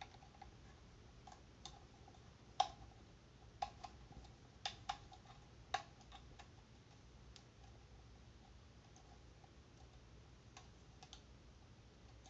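Scattered sharp clicks and light knocks from the ring light's phone holder and lock being handled and fitted together, the loudest about two and a half seconds in, several more over the next few seconds and a few fainter ones near the end.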